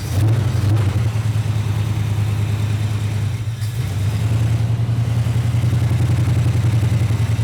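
1959 Pontiac Catalina's V8 running steadily with an even, rapid firing pulse, on its first start after sitting unused for many years.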